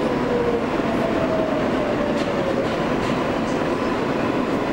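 Kawasaki R143 subway car running along the track, heard from inside the car: a steady rumble of wheels on rail, with faint whining tones that drift slowly lower in pitch.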